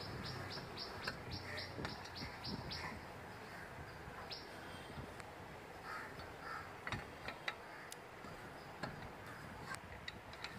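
Birds around the yard: a small bird chirps rapidly, about five chirps a second, for the first three seconds, and crows caw a few times. Several sharp metallic clicks come in the second half, the loudest two about seven seconds in, as the wheel spanner works on the wheel nuts.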